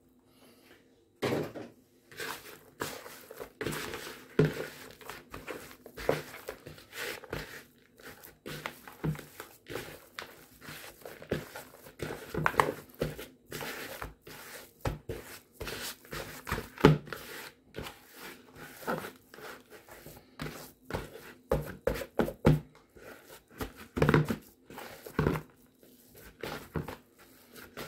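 Hands squeezing and pressing crumbly oatmeal biscuit dough together in a large mixing bowl: irregular rustling and crunching with frequent knocks of the bowl, starting about a second in.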